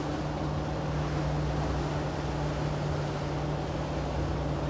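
Boat's outboard motor running at a steady speed, a constant hum over a rush of wind and water noise.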